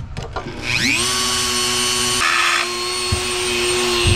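Handheld rotary tool with a cutting wheel, spinning up with a rising whine about half a second in and then running at a steady high pitch. Around two seconds in, a brief harsh grinding as the wheel bites into a stuck bolt head that is being cut down so it can be turned out.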